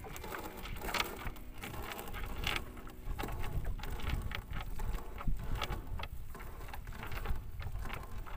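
Wet monofilament gill net hauled hand over hand into a boat: irregular rustling, light clicks and the patter of water dripping from the mesh, over a low rumble of wind on the microphone.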